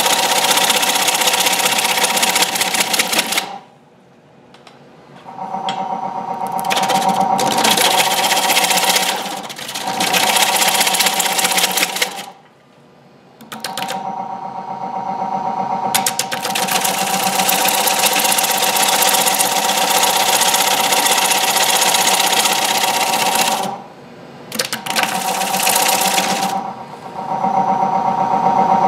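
Turning gouge cutting the face of a large basswood platter spinning on a wood lathe at about 475 RPM: a loud, rapid chattering cut over steady tones. The cut stops briefly three times, about 4, 12 and 24 seconds in.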